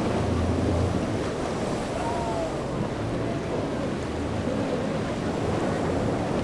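Rough surf and waves with wind buffeting the microphone, over the low steady drone of boat engines.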